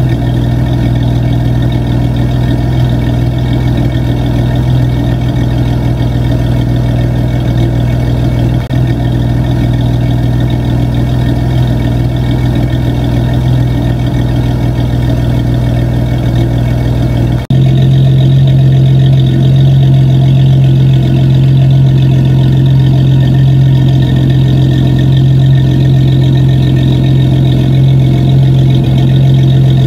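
Supercharged Ford Mustang's engine and exhaust running steadily at idle, a deep, even drone with no revving. About 17 seconds in, the sound suddenly becomes louder and a little higher in tone, then holds steady again.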